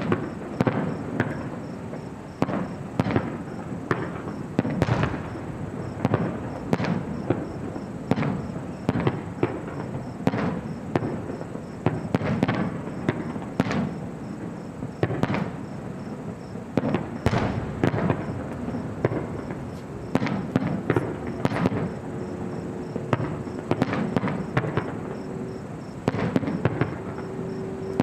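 Fireworks display: a continuous barrage of bangs and crackling, several bursts every second. A steady held tone joins in for the last several seconds.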